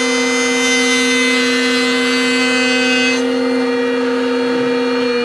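Router running at full speed with a steady high whine while rabbeting an acrylic piece; the hissy cutting noise stops about three seconds in, leaving the motor whining on its own.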